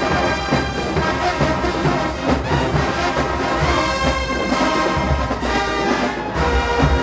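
Marching band brass section playing loudly over a steady drumline beat.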